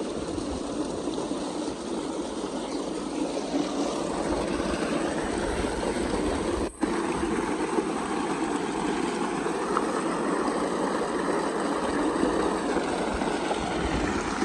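Heavy, steady rush of water pouring from a 5-inch pump delivery pipe into a concrete tank, with a split-second break about halfway.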